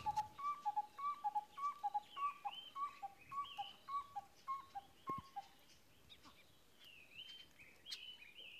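A bird calling a short two-note whistle, high then lower, over and over at a little more than twice a second; it stops about five seconds in. Other birds chirp faintly higher up.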